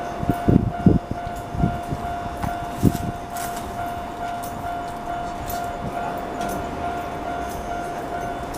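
Level crossing alarm ringing with its standard electronic tone, steady and fairly quiet. In the first few seconds a passing train's wheels thud irregularly over the rails.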